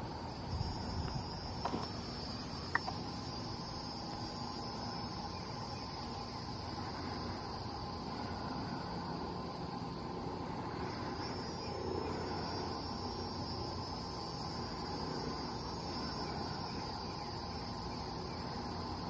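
Insects trilling steadily in a high, continuous chorus, with a few light clicks in the first three seconds.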